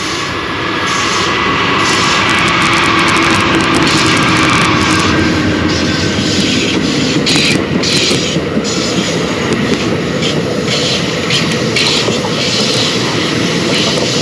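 Railroad cars rolling past close by: a loud, steady rumble of steel wheels on rail with a stream of quick clicks and knocks.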